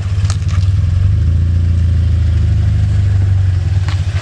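Scion FR-S's 2.0-litre flat-four engine running at low, steady revs through a freshly installed Invidia N1 catback exhaust, giving a loud, steady low drone.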